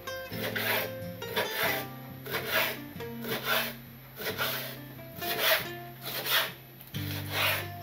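Kitchen knife slicing raw chicken thigh on a wooden cutting board, a drawing, rasping stroke about once a second, some eight strokes in all. Soft acoustic guitar music plays underneath.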